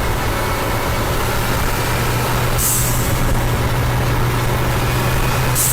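Renault Duster turbo petrol engine running with a steady low hum. A brief high hiss of turbo whistle comes about two and a half seconds in and again near the end.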